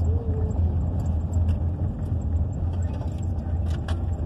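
Car driving slowly on a gravel road, heard from inside the cabin: a steady low rumble of engine and tyres, with a couple of sharp clicks near the end.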